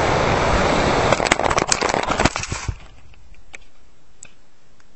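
Air rushing over the onboard camera of a diving Multiplex EasyStar radio-controlled foam plane, then a quick run of cracks and knocks as it crashes, after which it cuts off suddenly to a faint steady hiss with a couple of small ticks.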